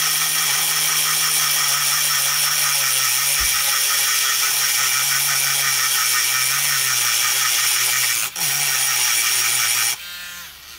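WL-800 micro grinder's small electric motor running at speed with a pink grinding stone pressed against rusty steel pliers, grinding the rust off. There is a brief dip just after eight seconds, and near the end it switches off and winds down.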